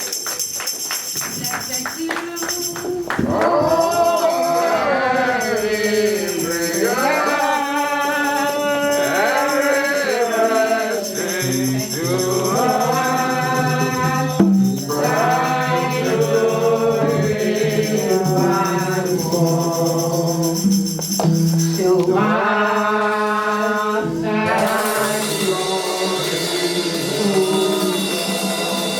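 Gospel song sung by voices to a steadily shaken tambourine.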